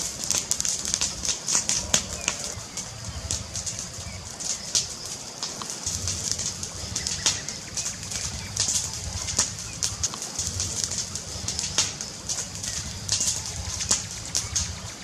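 Fireplace fire crackling: irregular sharp pops and snaps over a steady hiss and a low fluttering rumble of the flames.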